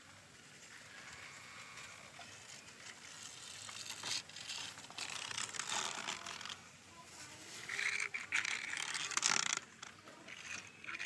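Small die-cast toy cars rolled and set down on a plastic toy car-carrier truck, their wheels clicking and rattling over the ribbed plastic deck in irregular bursts.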